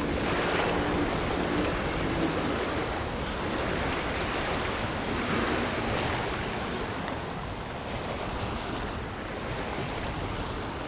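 Steady rushing noise of moving water and wind, swelling and easing every two to three seconds.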